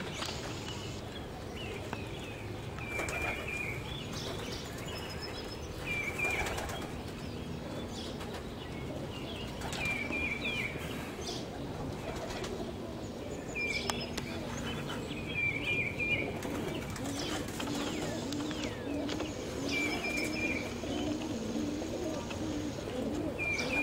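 Pigeons cooing outdoors in low, repeated coos that become steady in the last several seconds, while a small bird gives a short high chirp every three to four seconds.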